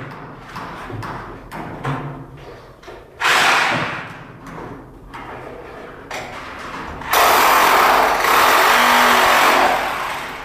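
Scattered knocks and handling noise, then an electric drill running steadily for about three seconds in the second half.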